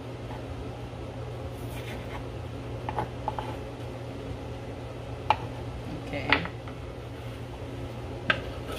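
Kitchen knife striking a wooden cutting board a few separate times while dicing red onion, over a steady low hum.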